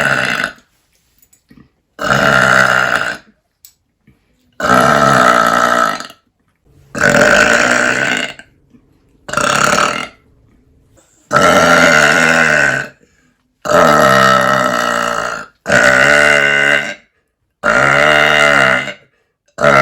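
A woman belching loudly on purpose: a run of about eight long, deep burps, one after another, each lasting one to two seconds with short pauses between them.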